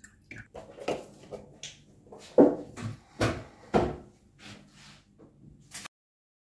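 Milk poured from a carton into a stainless steel saucepan, splashing and glugging, with a series of sharp knocks from handling the carton and pan, the loudest about halfway through; the sound cuts off abruptly near the end.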